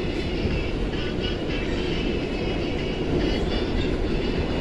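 New York City 6 subway train heard from inside the car, running at speed through a station without stopping: a steady rumble of wheels on the rails with a faint high ringing over it.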